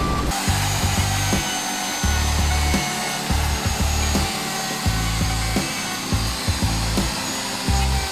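Electric wood router cutting into a wooden plank with a steady rasping whine, over background music with a bass line.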